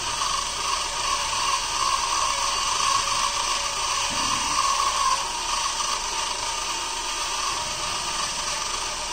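Small 12 V DC motors driving a conveyor belt, running with a steady whine that eases slightly about halfway through.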